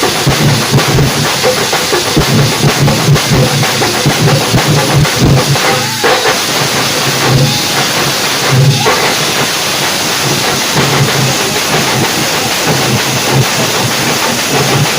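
Loud, continuous drumming by a festival percussion ensemble: dense rolling beats over a steady, repeating low beat.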